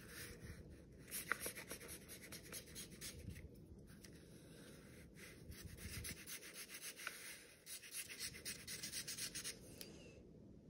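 Felt-tip marker drawing quick, short hatching strokes on watercolor paper: a faint scratchy rubbing in three runs of rapid strokes with short pauses between them, stopping shortly before the end.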